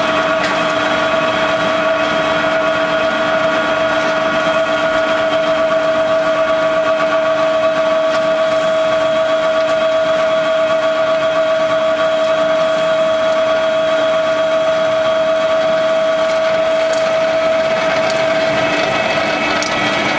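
Vertical-die wood pellet mill running under load while pressing sawdust into pellets: a loud, steady machine drone with a constant high hum.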